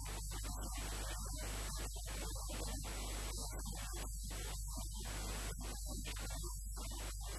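Steady electrical mains hum with hiss, an even buzz on the sound track with no distinct events.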